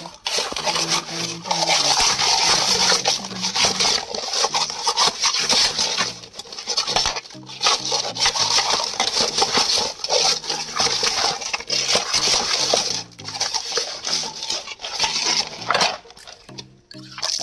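Hands scrubbing two rohu fish with salt in a metal bowl of water: a rough, scratchy rubbing of scaly skin in long spells with a few brief pauses.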